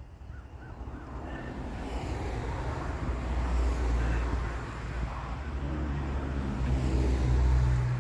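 A road vehicle going past: engine and tyre noise building over several seconds into a low rumble with a steady low hum.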